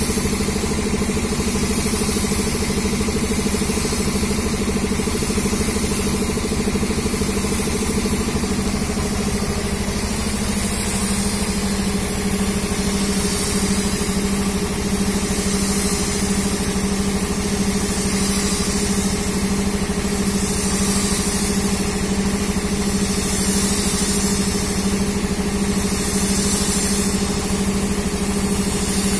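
A motor running steadily with a low hum whose pitch settles slightly lower about ten seconds in, while a high hiss swells and fades every few seconds.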